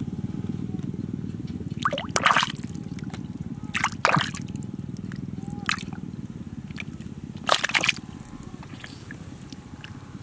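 A hand groping through a shallow muddy puddle, making wet squelches and splashes: the loudest come about two, four and seven and a half seconds in, with a smaller one near six. A steady low rumble runs underneath.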